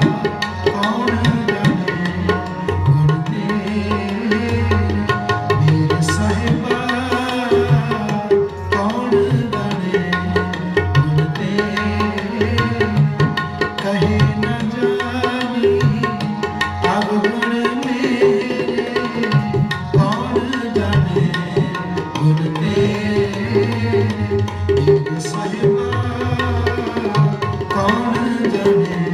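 Tabla playing, the bass drum's pitch swooping up and down every couple of seconds, over steady held instrumental tones.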